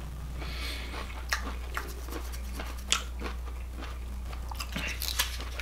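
Close-up chewing of a mouthful of fried shrimp: soft crunches and wet mouth clicks, with two louder crunches about a second in and near three seconds. A steady low hum runs underneath.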